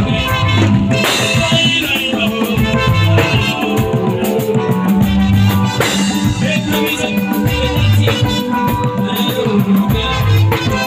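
Live band music: a drum kit keeping a steady beat under electric guitar and bass, with a man singing into a microphone.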